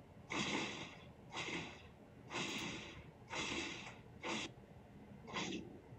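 Countertop food processor pulsing raw cauliflower into rice-sized bits: six short bursts of the blade spinning through the florets, about one a second, the last two shorter.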